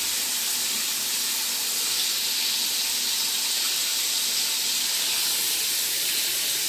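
Hot oil sizzling steadily as a flour-coated Bombay duck (bombil) fillet deep-fries in a kadai.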